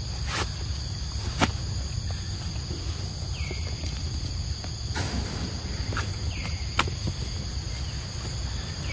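Steady high-pitched insect chorus over a low rumble, broken by four short sharp clicks, the loudest about a second and a half in and near seven seconds.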